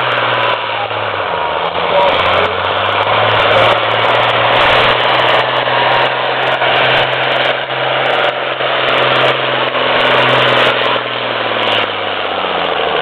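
Pulling tractor's diesel engine running hard at full load as it drags a weight-transfer sled down the track, loud and steady. The engine note drops near the end as the pull winds down.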